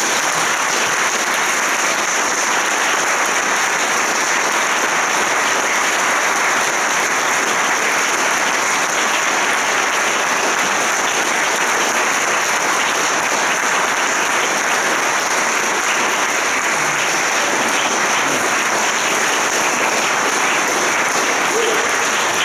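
Audience applauding: long, even applause with no let-up.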